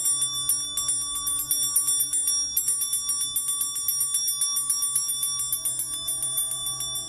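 Small brass hand bell shaken rapidly and continuously, its clapper striking many times a second with bright, high ringing tones. It breaks off briefly about two and a half seconds in, then rings on, slowly growing a little fainter.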